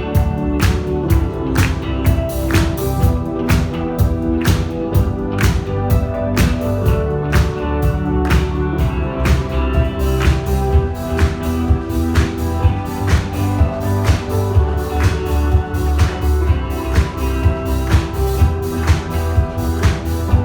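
Music with a steady beat of about two strikes a second over sustained chords and a strong bass line, with no clear lead vocal.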